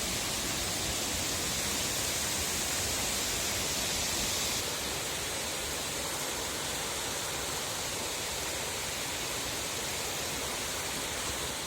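Mountain river rushing steadily over small man-made rapids. The water sound gets a little softer about four and a half seconds in.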